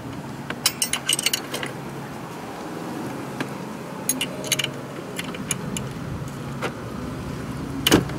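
Steel combination wrench clinking on the exhaust valve's adjuster lock nut and rocker arm of a GY6 150cc scooter engine as the nut is worked loose. Quick runs of sharp metal clicks come about a second in and again around four seconds, with a louder clink near the end, over a steady low hum.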